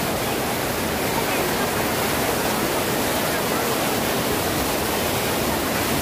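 Overflowing lake water pouring over a low weir and rushing across a concrete spillway apron: a steady, unbroken rush of water.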